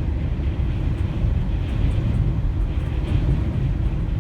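Steady low rumble of wind and road noise from a vehicle travelling at highway speed in strong, gusty wind.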